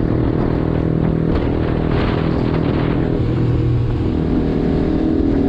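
Motorcycle engines running at steady highway cruising speed: the rider's Yamaha R15 and a Benelli 600i alongside, with wind rushing over the microphone. The engine tone shifts about four seconds in.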